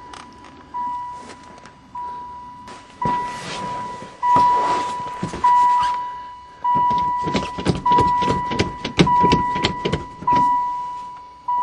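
A van's warning chime dinging about once every 1.2 seconds, one steady pitch each time: the van's electrics have power again from a freshly fitted battery. Clicking and rustling handling noise runs under it.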